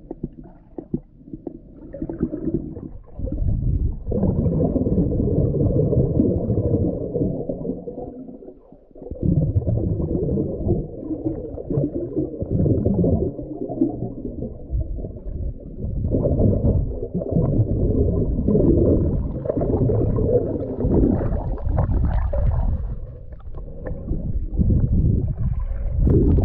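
Muffled underwater rumbling and gurgling of moving water, picked up by a submerged camera microphone. It comes in irregular surges and drops away briefly about nine seconds in.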